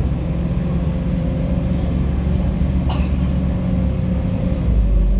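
Cabin sound of a MAZ-105 articulated city bus under way: a steady low diesel engine and road drone with a faint steady whine above it. A brief sharp click comes about three seconds in, and the low drone changes pitch near the end.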